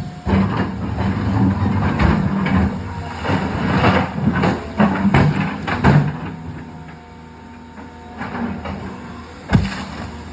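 Excavator's diesel engine running, with a rapid run of metallic clanks and knocks for the first six seconds, then quieter running and a single sharp impact about nine and a half seconds in.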